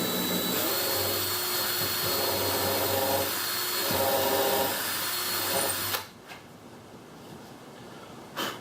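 Power drill running steadily with a small 1/8-inch bit, pre-drilling a pilot hole for a door hinge through thin plywood, then cutting off suddenly about six seconds in. A single sharp click near the end.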